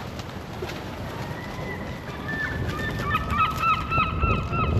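Large birds calling in a rapid series of short, honking squawks that start about two seconds in and grow more frequent, over low wind rumble on the microphone.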